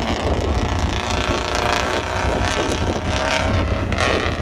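Engine of a prepared off-road truck running hard as it drives through a water crossing, throwing up spray.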